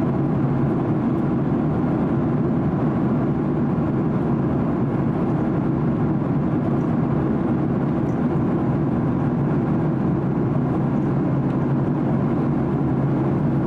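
Steady cabin noise of a Boeing 767-300 airliner in cruise, heard from a window seat: an even rush of engine and airflow noise with a low hum underneath, unchanging throughout.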